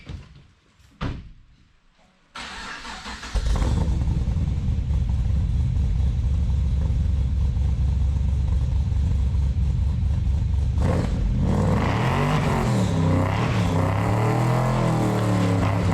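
Supercharged LS7 V8 engine starting a few seconds in and idling loudly, then revved up and down several times over the last few seconds. Two short clicks come first.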